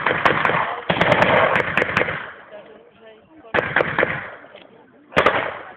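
Blank gunfire in a mock battle: a rapid run of shots through the first two seconds, then separate shots about three and a half and five seconds in, each trailing off in a long echo.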